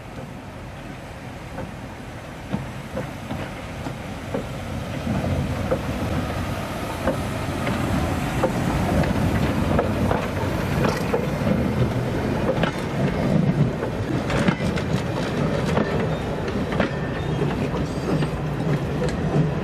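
Steam saddle-tank locomotive and its coaches approaching and passing close by: a rumble that grows steadily louder over the first half, then the carriage wheels clicking irregularly over the rail joints as the coaches go past.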